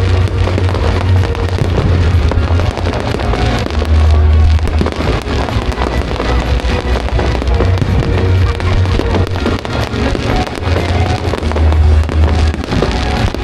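Fireworks display going off, a dense run of crackles and bangs, over loud music with a heavy bass beat.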